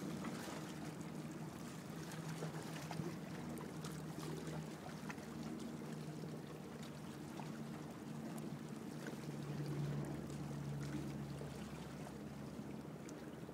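Water lapping and sloshing close by, with small splashy ticks, over a low steady hum of a boat's motor.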